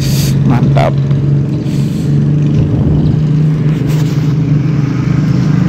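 A steady low motor drone, like an engine running without change, with a few brief clicks in the first second.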